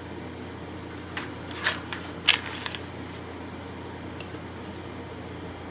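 Pages of a paperback book being turned and handled: a cluster of short papery rustles and flicks in the first half, one more a little later, over a steady low room hum.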